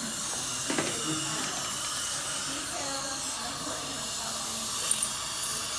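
Steady hiss from dental equipment during a filling, with faint murmured voices under it. Short sharp clicks come about a second in and again near the end.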